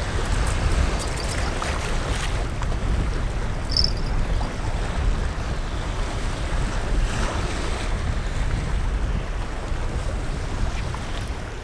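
Wind buffeting the microphone over the steady wash of choppy sea waves against a concrete sea wall.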